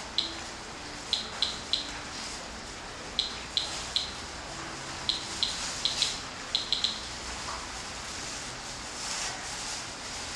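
Handheld Inspector Geiger counter chirping at random intervals, one short high beep for each detected count, about fourteen in the first seven seconds and none in the last three. Steady rain hiss underneath.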